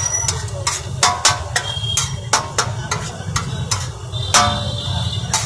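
A flat metal spatula scraping and knocking on a large steel griddle as chickpea chaat mixture is mashed and mixed, in irregular sharp scrapes about two or three a second. A steady low hum runs underneath.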